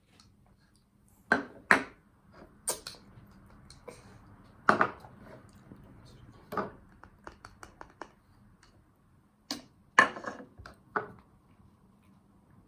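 Spoon and dishes clinking and knocking irregularly, about a dozen sharp taps, the loudest a little over a second in and about ten seconds in, over a faint steady hum.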